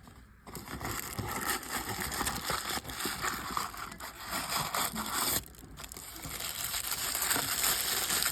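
Plastic packaging being crinkled and torn open during an unboxing of a miniature toy set, with a brief pause about five and a half seconds in.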